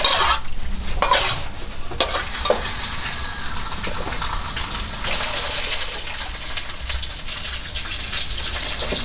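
Water splashing and dripping as handfuls of washed leafy greens are lifted out of a metal basin and dropped into a plastic colander: a few splashes, then a steady patter of dripping.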